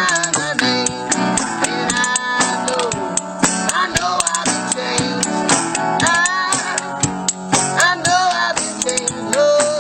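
A song with guitar and a singing voice, with many sharp, quick clicks of spoons played as percussion along with it.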